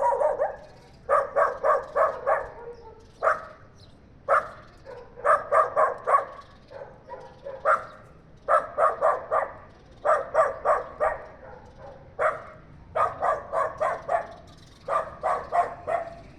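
Dog barking in quick runs of three to five barks, with a short pause of about a second between runs.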